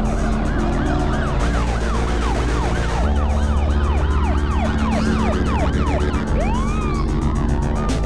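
Police car sirens yelping: quick rising-and-falling wails, about two or three a second, with a slower single wail near the end. Underneath are background music with a steady beat and low sustained tones.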